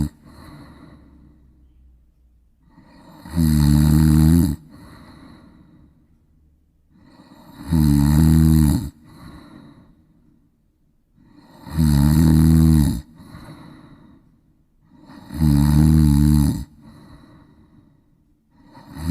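Angora cat snoring, with four loud snores about every four seconds, each lasting a little over a second, and softer breathing between them.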